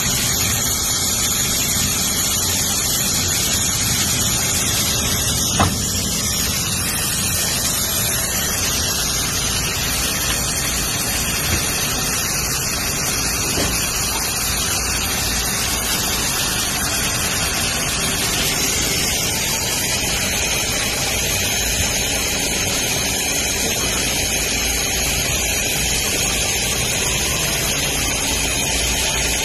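Steady mechanical running noise of a large automatic sewing machine and factory machinery, with a sharp click about six seconds in and another near twelve seconds.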